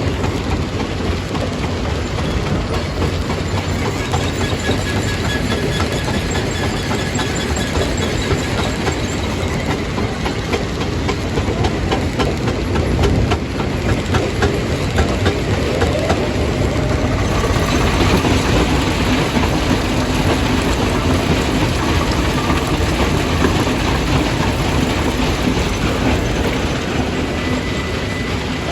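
Jaw crusher crushing stone: a loud, continuous din of rock clattering and knocking in the crusher, over the steady running of the plant's machinery.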